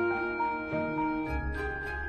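Instrumental background music: held melodic notes changing about every half second over light regular ticks, with a deep bass coming in about a second and a half in.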